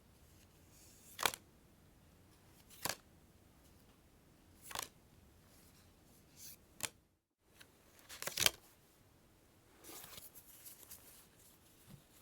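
Playing cards handled in a string of single sharp snaps, five of them spaced a second and a half to two seconds apart, with the last the loudest, then a short soft rustle of cards near the end.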